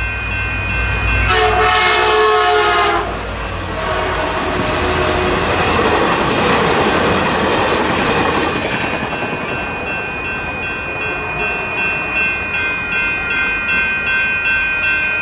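Caltrain commuter train sounding one long horn blast about a second in, then passing over the grade crossing with a broad rush of wheel noise on the rails that fades after about nine seconds. The crossing's warning bells ring steadily throughout.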